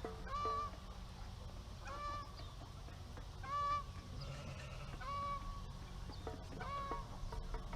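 Farm fowl giving a short, flat honking call five times at a steady pace, about every second and a half.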